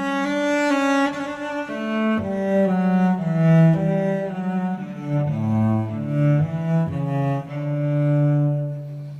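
Instrumental music carried by a low bowed string melody, its notes changing every few tenths of a second.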